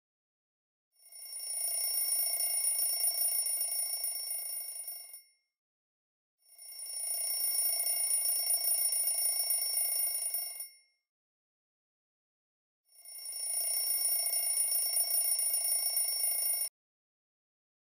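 Mobile phone ringing: three rings of about four seconds each, with short pauses between them, the third cut off abruptly as if silenced.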